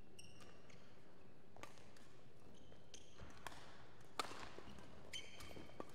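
Court shoes squeaking on a badminton court, with a few sharp racket hits on a shuttlecock; the loudest hit comes about four seconds in.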